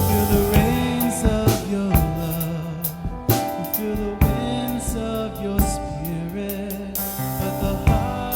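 Live worship band playing a praise song, with drum kit, sustained instruments and singing.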